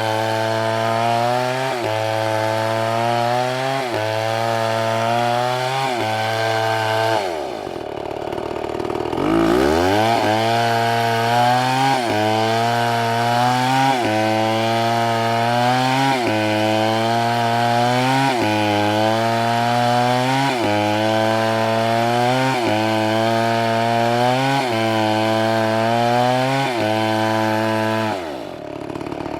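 Chainsaw running under load while cutting oak, its engine note sagging and recovering in a regular pattern about every second and a half. About seven seconds in the revs fall steeply, almost to a stall, then climb back up; near the end they drop away again.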